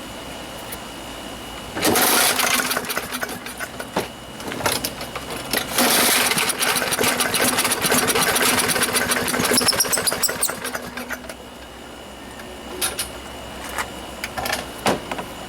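Craftsman lawnmower's small engine being started: it fires for a couple of seconds about two seconds in, then catches again and runs roughly for about five seconds before fading out and dying.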